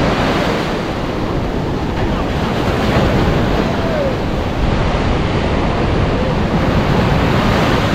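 Surf breaking and washing up a sandy beach, with wind buffeting the microphone: a loud, steady rushing noise.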